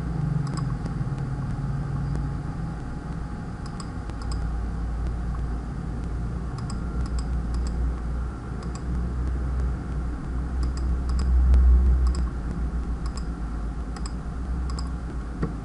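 A dozen or so light, irregular clicks of a computer mouse, some in quick pairs, over a steady low hum.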